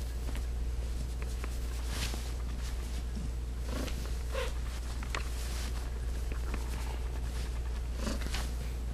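Domestic cat purring steadily while being stroked on her belly, with brief rustles of hand on fur and bedding every second or so.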